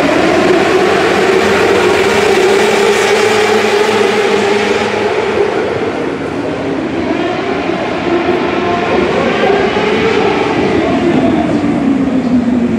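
Engines of a pack of small open-wheel dirt-track race cars running laps inside an enclosed arena, their pitch rising and falling as the cars circle. The sound eases a little about halfway through, then builds again.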